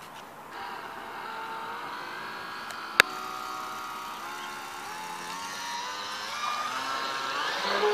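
Electric motor of a Syma Century RC speedboat whining as the boat gets under way, its pitch stepping up several times as the throttle is opened. A single sharp click about three seconds in.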